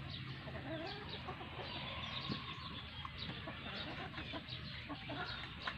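Chickens clucking, a scatter of short overlapping calls.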